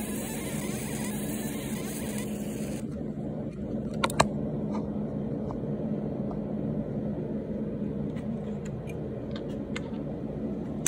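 Steady motor hum with a constant low drone. A bright hiss over it stops abruptly about three seconds in, and two sharp clicks follow about a second later.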